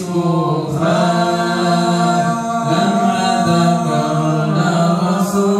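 Unaccompanied Arabic devotional chanting of salawat in praise of the Prophet, the melody drawn out in long, slowly wavering held notes.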